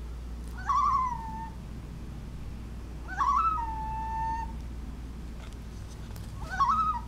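Three drawn-out animal calls played through computer speakers, a few seconds apart. Each one rises sharply, then holds a steady, slightly falling pitch for about a second, somewhat like a meow. A steady low hum runs underneath.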